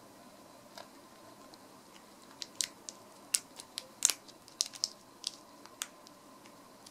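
A cat licking and biting at a hard propolis throat candy in its wrapper: a quick run of sharp little clicks of teeth on the candy, starting a couple of seconds in and bunching up around the middle.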